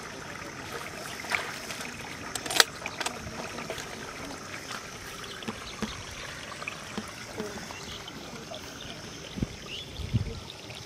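Shallow water trickling steadily, with a few sharp clicks and knocks in the first three seconds, the loudest about two and a half seconds in, and a couple of dull low thumps near the end.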